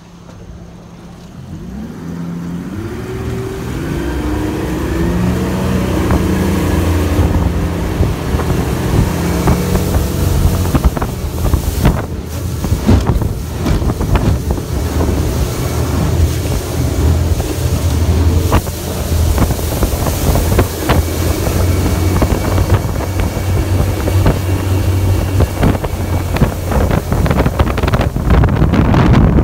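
Boat motor throttling up, its pitch climbing over the first several seconds as the boat gets up to speed. It then runs steadily and loudly, with wind buffeting the microphone and water rushing past the hull.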